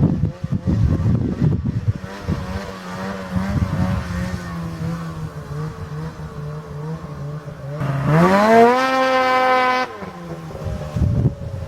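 Ski-Doo XM 800 E-Tec two-stroke snowmobile engine through an HPS aftermarket silencer, idling steadily, then revved quickly about eight seconds in, held high for under two seconds and dropped sharply back to idle.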